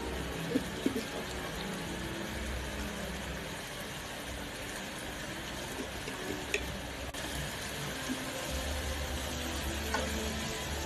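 Chicken livers simmering in sauce in a frying pan over a gas flame: a steady sizzle and bubbling with a few small pops. A spatula stirs the pan near the end.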